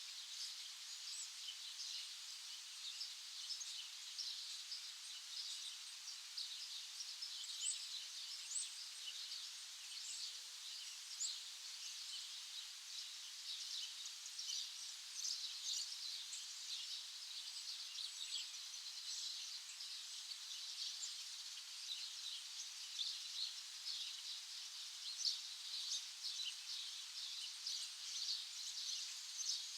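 A dense chorus of many small birds chirping without pause, the short high chirps overlapping one another. Two sharper, higher notes stand out about eight seconds in.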